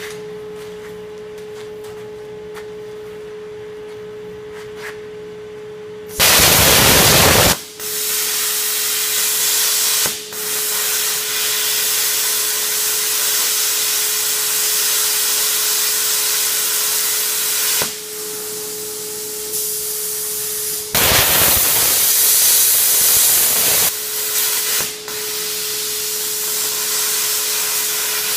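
Power saw cutting into a steel railroad rail. A steady hum for about six seconds, then loud, hissing cutting noise in several long spells, with short breaks about 8, 10, 18, 21 and 24 seconds in.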